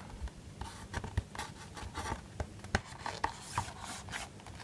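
Hands handling a cardboard Blu-ray digipak: an irregular string of soft scrapes, rubs and light taps of card against card and fingers.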